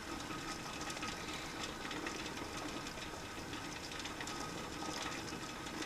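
Water coming to a boil in a Groen TDB 6-10 jacketed electric kettle, almost at a full boil and steaming: a steady hiss with fine crackling bubbles.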